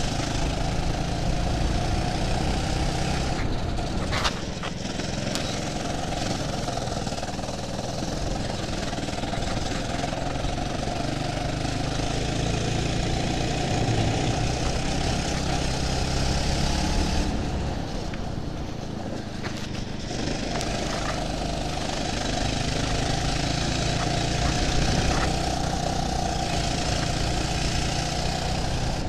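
Go-kart engine running on a lap, its pitch rising and falling as the throttle is opened and eased off. A single sharp knock about four seconds in.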